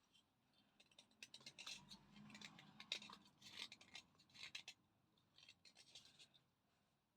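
Crisp crunching of a thick Chandni slate pencil being bitten and chewed: a run of dry, crackly crunches in several clusters that begins about a second in and stops about a second before the end.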